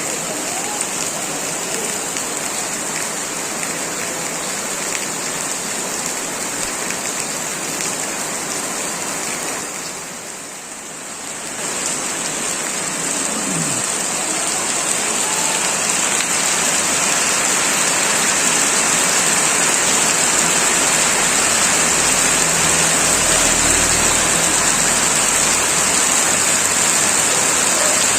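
Heavy rain pouring steadily onto surfaces, easing briefly about ten seconds in and then coming down harder.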